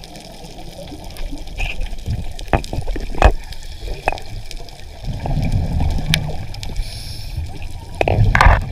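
Underwater sound picked up by an action camera's microphone: low rumbling water movement and bubbling, with several sharp clicks.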